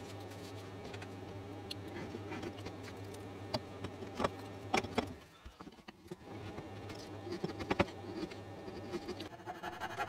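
Mini carving chisel paring a clamped block of wood by hand: a few sharp cuts and clicks between about three and five seconds in, the loudest near the eighth second, over a steady low hum.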